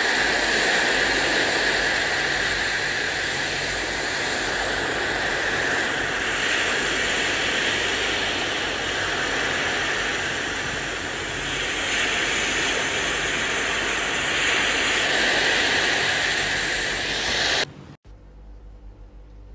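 Seashore ambience: a steady rushing hiss of small waves washing on the shore, with wind. It cuts off suddenly near the end.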